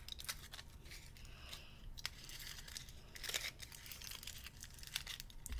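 Faint crinkling and small crackles of a wrapper on a carrot-shaped Easter candy as fingers pick and pull at it to open it.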